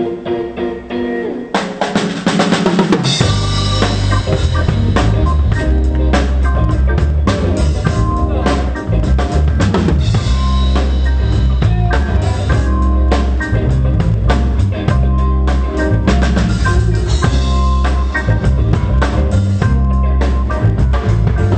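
Live pop band playing a short piece at a sound check: a few held instrument notes, a drum fill about a second and a half in, then the full band with drum kit and heavy bass coming in at about three seconds and playing on.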